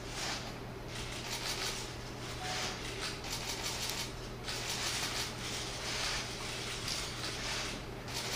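Theatre audience applauding, a dense clapping that swells and eases, over a steady low hum.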